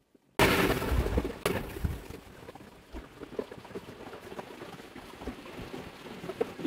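Sudden loud rustling and bumping on a handheld phone's microphone, then softer uneven rustling with scattered small clicks as the phone is handled and hair is brushed by hand.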